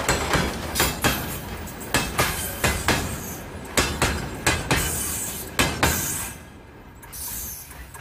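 Freight wagons' wheels clacking over the rail joints in quick groups of knocks over a rolling rumble as the end of the train passes. About six seconds in the clacking stops and the sound fades away.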